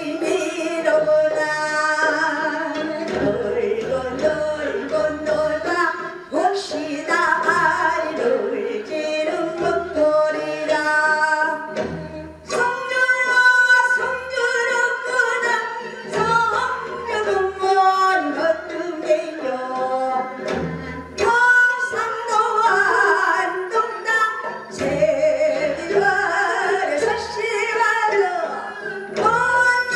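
A woman singing a Korean folk song (minyo) into a microphone in a trained pansori-style voice, with wavering, gliding held notes, over instrumental accompaniment.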